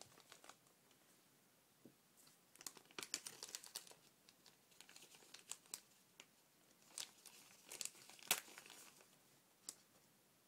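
Thin plastic bag crinkling as it is handled, in uneven clusters of crackles, with the sharpest crackle about eight seconds in.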